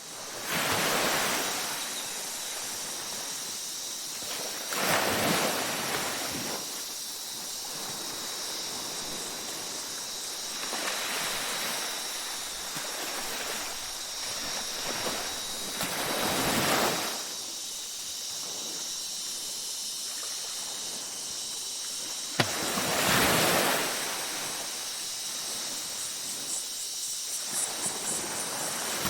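Ocean waves breaking and washing up on a beach, a surge every five or six seconds over a steady wash, with a steady high-pitched drone of night insects behind. A single sharp click comes about two-thirds of the way through.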